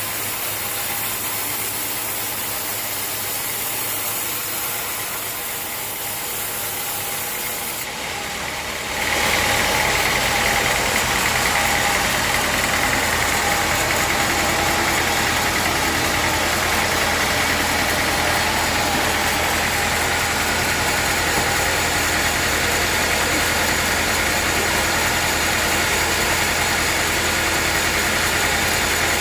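Sawmill machinery running with a steady, engine-like drone that becomes louder and fuller about nine seconds in.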